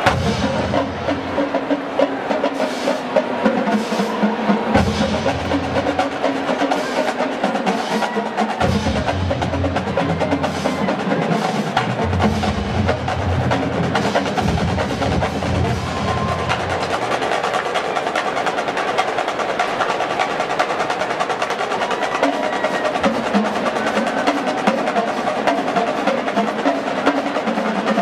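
Marching band drumline playing a fast percussion feature on snare drums, tenor drums and bass drums. The low bass drums come in for stretches and drop out again.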